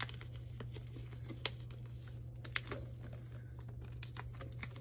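Plain paper and plastic binder sleeves being handled: a handful of light, separate clicks and soft crinkling as sheets are slid into photocard binder pockets, over a steady low hum.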